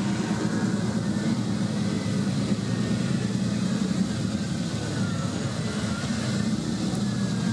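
Ferrari 250 GTO V12 engines running at low revs as the cars creep past close by, a steady low engine note.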